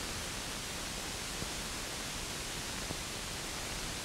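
Steady hiss of an old recording, with no other sound apart from a faint click about a second and a half in and another near three seconds.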